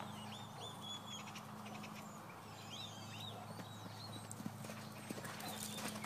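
Faint hoofbeats of a horse on sand arena footing, growing louder toward the end as the horse nears the jumps.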